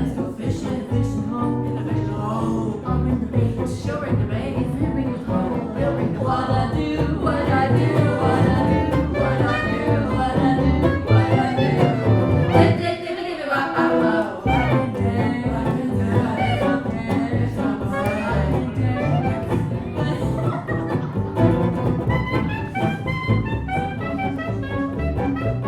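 Live band playing a jazz number, with bass underneath; the bass and low end drop out briefly about halfway through.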